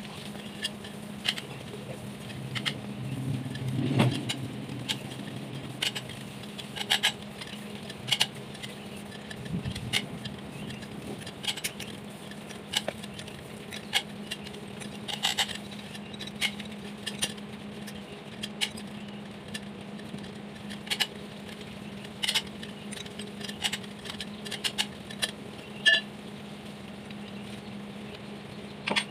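Wrenches and a long breaker bar clinking and clanking on the cylinder head of a Komatsu four-cylinder engine: scattered sharp metallic clicks and taps, with a heavier thump about four seconds in. A steady low hum runs underneath.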